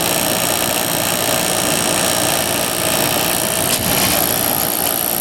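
Whirlpool 10,000 BTU window air conditioner running: its fan blowing and its Matsushita compressor running with weird, angry-sounding noises. There is a brief click about three-quarters of the way through.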